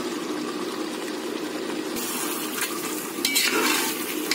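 Oily biryani masala bubbling and sizzling in a metal pot. About two seconds in, a metal ladle starts stirring the masala and scraping the pot, getting louder toward the end.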